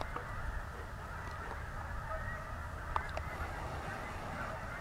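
A flock of Canada geese honking, many calls overlapping in a continuous chatter.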